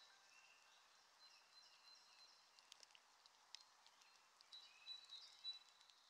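Near silence, with a few faint high tones as the background song fades out.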